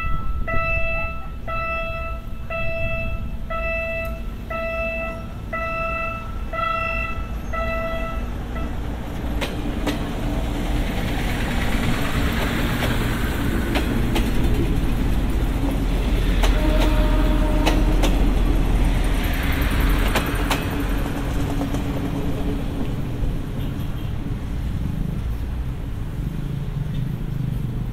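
A level-crossing warning bell chimes at about one stroke a second, then stops about eight seconds in. A KiHa 52 diesel multiple unit then passes with its engines running and its wheels clicking over the rail joints. The noise is loudest as the railcars go by and eases off as the train pulls away.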